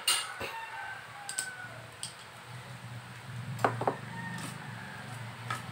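A metal hacksaw set down on a wooden stool with a sharp clack, then scattered small clicks and knocks from handling a plastic pipe coupling, with a quick cluster of clicks a little past halfway.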